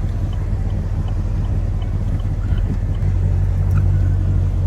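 Naturally aspirated V8 of a Chevrolet Camaro SS 1LE running at low revs, a steady low rumble heard from inside the car, which grows slightly louder about three seconds in.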